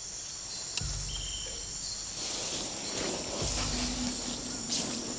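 Rainforest insects chorusing: a steady high-pitched buzzing, with a low rumble coming and going underneath.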